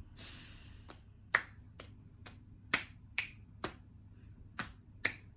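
Finger snaps keeping a steady beat of about two snaps a second, with one beat skipped midway, after a short hiss at the start.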